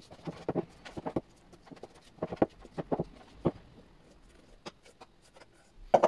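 Spatula knocking and scraping against a glass mixing bowl while meringue is folded into thick macaron batter: irregular soft taps, with a louder knock near the end.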